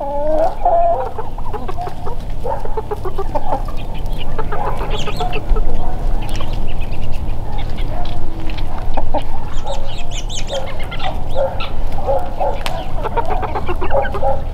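A flock of hens clucking, with many short calls overlapping throughout.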